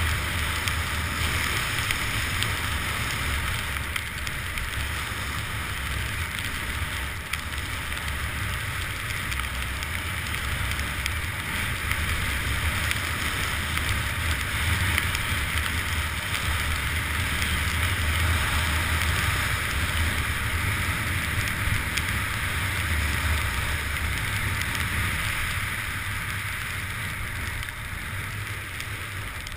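Steady rush of wind buffeting a GoPro Hero2 and skis hissing as they slide over the snow on a downhill run. It swells a little past the middle and eases near the end.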